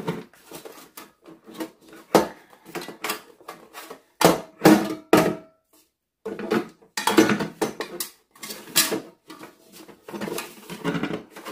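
Bread maker pan knocking and clattering against the machine's baking chamber as it is twisted and worked onto the round drive fitting. The knocks are irregular, and one rings briefly about five seconds in.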